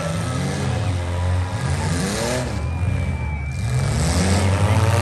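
Demolition derby car engines running loud and rough, revving up and down in rising and falling sweeps over a steady low drone.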